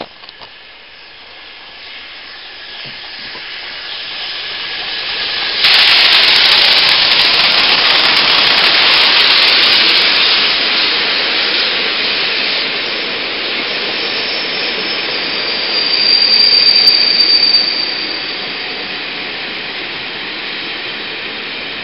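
Peppercorn A1 Pacific steam locomotive 60163 Tornado and its coaches arriving and passing. A loud, steady hiss of steam comes in suddenly about six seconds in and slowly eases as the coaches roll by. A high-pitched squeal from the train rises briefly about two-thirds of the way through.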